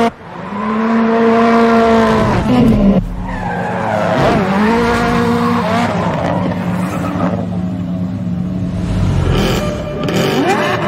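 High-performance car engines running hard, their pitch rising, holding and falling as the cars accelerate and pass, with abrupt breaks where the shots change.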